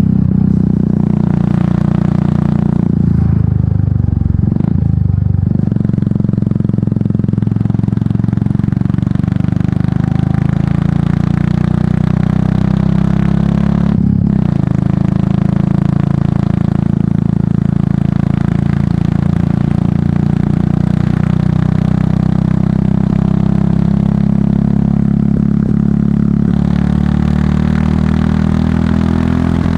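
Royal Enfield Meteor 350's single-cylinder engine running under way through an aftermarket exhaust, with a steady beat. The pitch dips and shifts briefly about four seconds in, and there is one short knock about fourteen seconds in.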